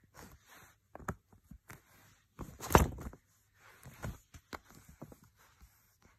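Banknotes being handled: irregular rustling and light clicks of paper notes being moved and shuffled, with a louder, longer rustle a little under halfway through.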